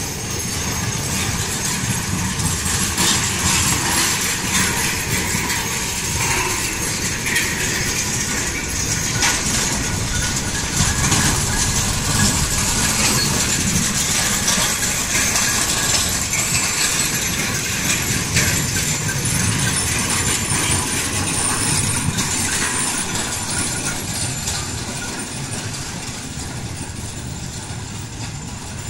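Bullock carts on wooden spoked wheels rolling fast along a paved road: a steady rumble and rattle of the wheels with many small knocks and clatters, growing fainter near the end as the carts move away.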